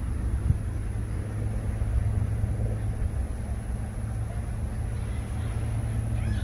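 A steady, low engine hum, with one brief thump about half a second in.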